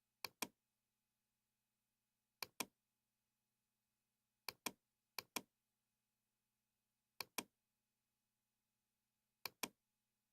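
Computer mouse button clicked six times at uneven intervals, each click a sharp double tick of press and release, over near silence with a faint hum.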